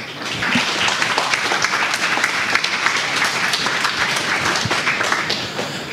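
Audience applauding: many hands clapping, swelling in the first half second, holding steady, then dying away near the end.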